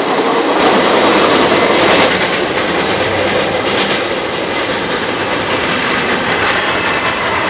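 Freight train's wheels rolling on the rails as the last cars and caboose pass, steady and easing a little as the train moves away.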